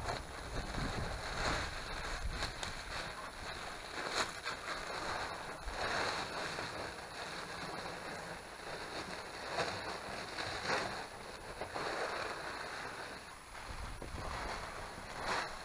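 Rustling and crinkling as a roll of roofing material is unrolled and pressed onto a small wooden roof, in repeated short handling surges, with wind rumbling on the microphone.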